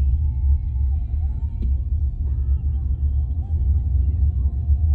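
Steady low road and wind rumble inside the cabin of a moving car, with faint music underneath.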